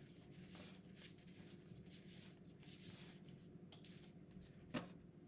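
Faint rustling and scratching of paper as banknotes are handled and a pen moves on a planner page, with one short click a little before the end.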